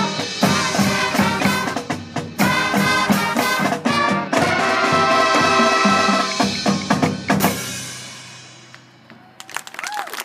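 Marching band, horns and drumline, playing with heavy drum strikes and ending on a final hit a little past seven seconds in, after which the sound dies away. Crowd applause starts near the end.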